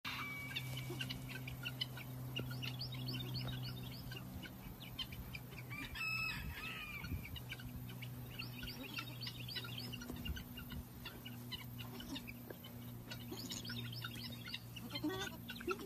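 Birds chirping and calling throughout, with one longer call about six seconds in and another near the end, over a steady low hum.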